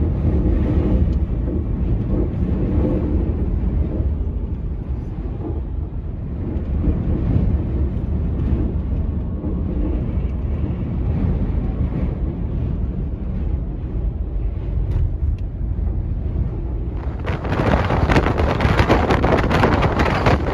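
Strong wind buffeting the microphone as a steady low rumble. About seventeen seconds in, a harder gust adds a loud, rough hiss.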